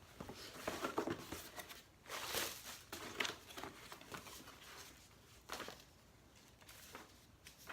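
Camera packaging being handled: irregular bursts of rustling and crinkling, the loudest about two and a half seconds in.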